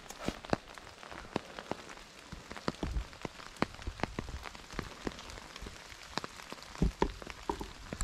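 Light rain falling, individual raindrops ticking sharply near the microphone several times a second over a faint steady hiss, with a few louder low knocks near the end.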